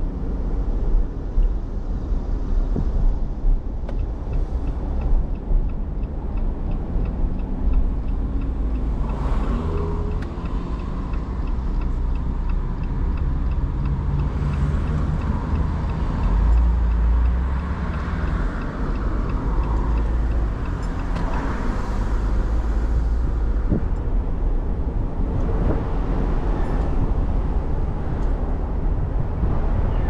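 A car driving along a road: a steady low rumble of engine and tyres with road noise, swelling louder now and then.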